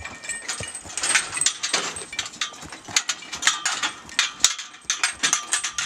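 Rapid, irregular clinking and knocking, typical of metal harness fittings and the cart's gear rattling around a Clydesdale in the shafts.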